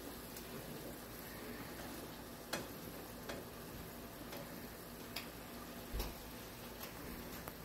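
Quiet room noise with a few scattered light clicks, the sharpest about two and a half and six seconds in.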